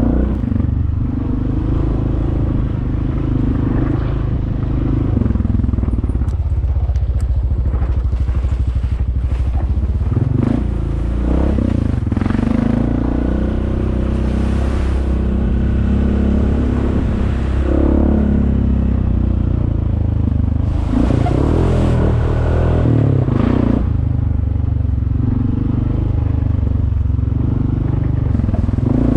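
Off-road vehicle's engine running steadily. Its pitch rises and falls a few times as it changes speed, with some rattles and knocks mixed in.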